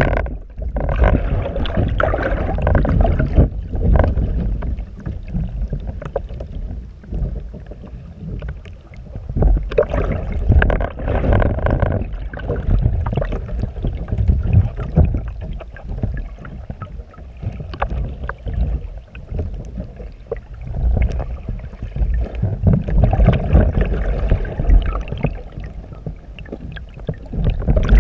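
Sea water sloshing and churning around a capsized kayak, heard muffled through a partly submerged camera housing. It comes as low, rumbling surges that swell and ebb every few seconds as the hull rocks in the swell, with a few sharp knocks.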